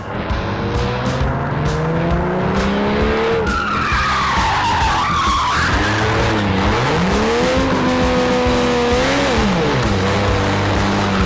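Car engine revving up in a long rising pull, then a wavering squeal of tyres about four seconds in. The engine revs up again and drops back to a steady lower note near the end.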